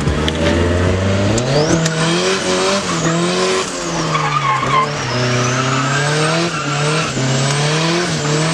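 Nissan S14's turbocharged SR20DET four-cylinder engine revving high while drifting, its pitch climbing about a second in and then rising and falling again and again as the throttle is worked, over the hiss of tyres sliding on wet tarmac.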